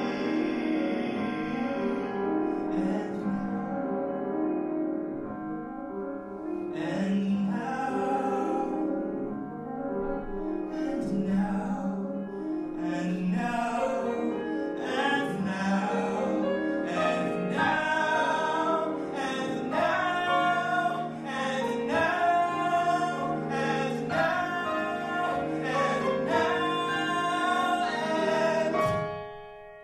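A man singing a song, accompanied by a grand piano, growing fuller and ending on a held note that fades away near the end.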